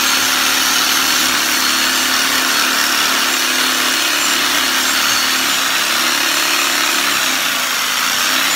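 Sawzall reciprocating saw fitted with a grout-removal blade, running steadily as it grinds the old grout out of a joint between chiseled travertine tiles.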